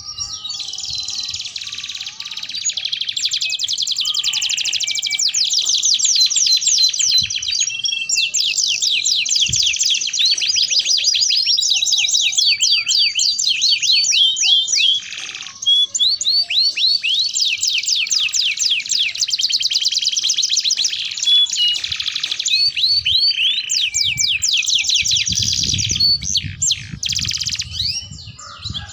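Domestic canaries singing a long, continuous song of fast rolling trills and quick repeated chirps, with a short break about halfway through.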